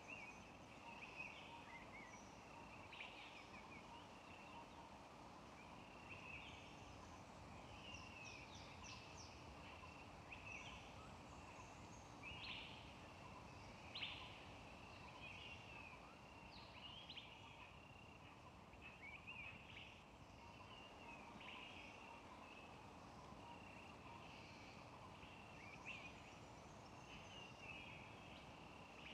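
Faint outdoor ambience of small animals chirping: many short, high calls repeating continuously over a low steady hiss.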